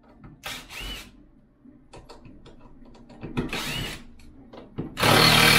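Hand-tool work on water heater plumbing: short runs of mechanical clicking broken by three rasping bursts, the last and loudest about five seconds in.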